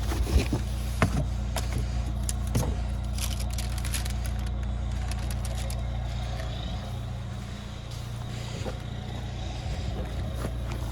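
Car engine idling with a steady low hum, with several sharp clicks and knocks in the first few seconds and a few more near the end.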